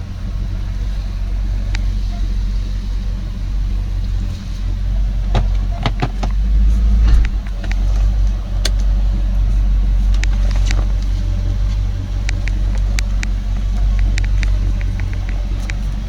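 Audi S6 C4's stock engine and exhaust running with a steady low rumble, swelling to its loudest about seven seconds in, with scattered sharp clicks over it.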